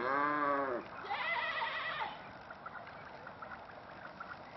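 Two drawn-out animal calls: a low one that rises and falls in pitch, then a higher, wavering one about a second in.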